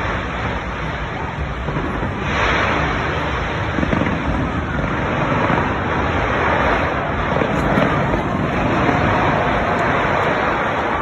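Fireworks bursting and crackling in a dense, continuous barrage, with a crowd's voices mixed in.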